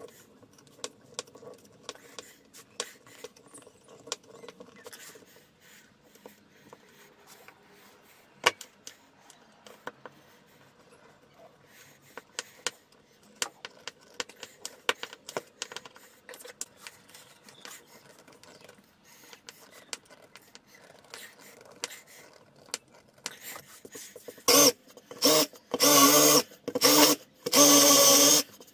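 Cordless drill boring into a wooden frame rail near the end, running in four short bursts with a steady motor whine. Before that, faint scattered clicks and scraping of a hand tool working at holes in a wood-slice and epoxy panel.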